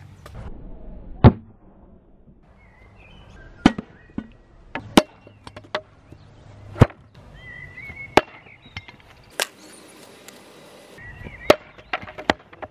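A hatchet with a cast aluminium handle striking wood in a run of sharp knocks and thwacks, irregularly spaced a second or so apart, the loudest about a second in.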